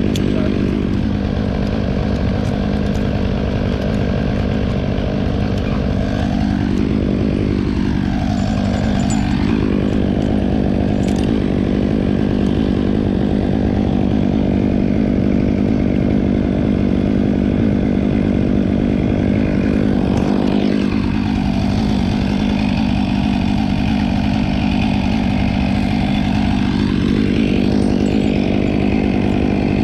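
An engine running steadily at one constant pitch, with no changes in speed or load.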